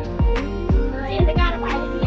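Background music with a steady beat of deep drum hits, about three a second, under a pitched melody.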